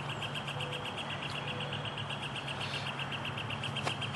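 An insect calling: a fast, even train of high chirps, about ten a second, over a steady low hum.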